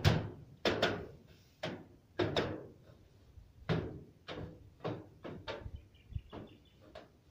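A long-handled tool repeatedly strikes and scrapes in a roof gutter, digging out packed volcanic ash. About a dozen sharp, irregular knocks, each with a short ringing tail, coming more sparsely and more faintly toward the end.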